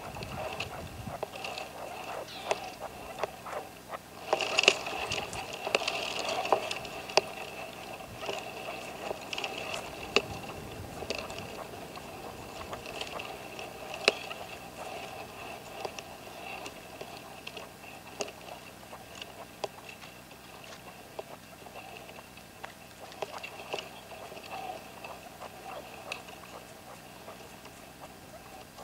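Caged red-legged partridge used as a hunting decoy (reclamo), giving soft rapid clucking and ticking calls. The calls are busiest and loudest about four to seven seconds in and thin out toward the end.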